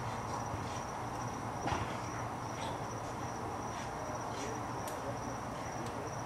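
Night insects trilling in one steady high-pitched tone, over a low steady background rumble, with a few faint ticks.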